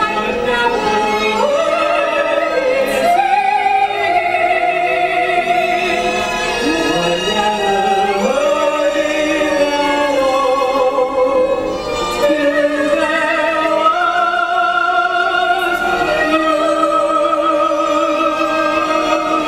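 Operatic-style singing with a wide vibrato over musical accompaniment, gliding between long notes and holding one long note near the end.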